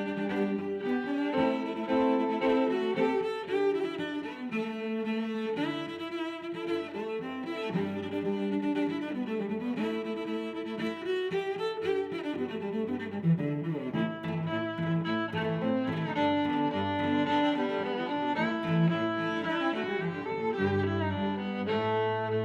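Background music of bowed strings, cello and violin, playing sustained, changing notes.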